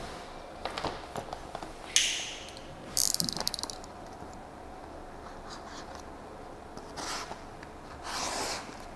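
Large sheet of paper being handled over a car: a sudden crinkle about two seconds in, a short burst of rapid ripping crackles about a second later, and softer rustling near the end as the excess paper is cut away.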